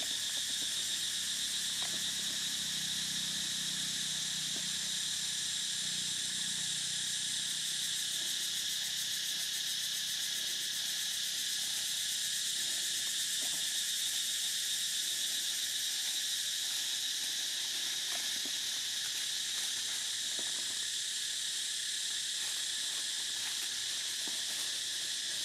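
Steady chorus of forest insects, an unbroken high droning buzz, with a few faint clicks scattered through it.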